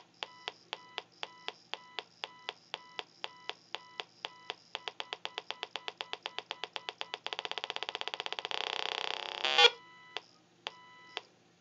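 Electromagnetic field of a transformer-built Digital Dowsing EM pump, picked up by an inductive telephone pickup and played through a mini amplifier speaker. It comes out as a train of short electronic beeps that speed up into a continuous buzz about seven seconds in. A loud crackling burst follows, then the beeps return sparse and slow near the end.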